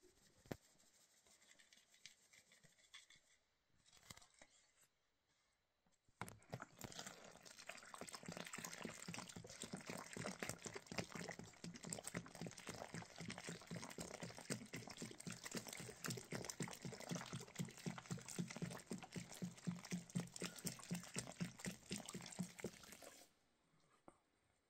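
Water pouring from a plastic jerrycan into flour in a metal basin, glugging in quick steady pulses as air gulps back into the can. It starts about six seconds in and cuts off suddenly near the end, with faint rustling of hands in flour before it.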